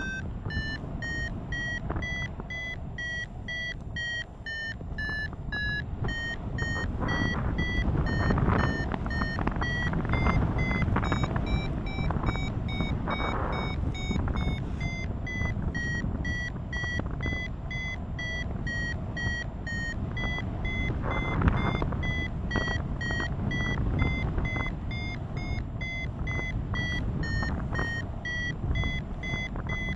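Paragliding variometer beeping in an even train of short beeps, about two a second, its pitch rising a little partway through and settling back: the tone a vario gives while climbing in lift. Wind rushes over the microphone underneath.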